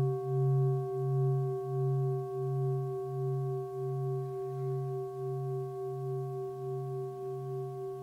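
Singing bowl ringing on after a strike, its deep hum pulsing in a slow wah-wah beat about one and a half times a second, with clear higher tones held steadily above it, slowly fading.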